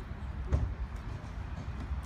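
A single dull thump about half a second in, from a plywood shipping-crate panel being handled, over a steady low rumble.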